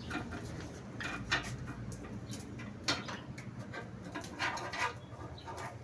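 Scattered light clicks, taps and scratches from hands working on the panel and its cables, over a steady low hum.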